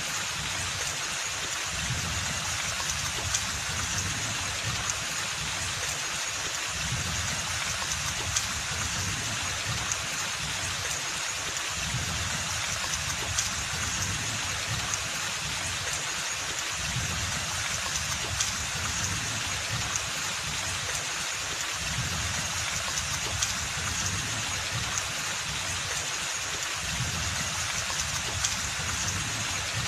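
Steady rain falling in a forest: an even, constant hiss with scattered small drop ticks and a low rumble underneath.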